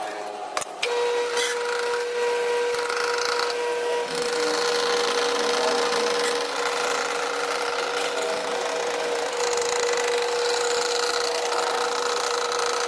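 A power tool starts about a second in and runs at a steady speed, giving a constant whine over a rasping, scraping noise as it cuts or grinds material.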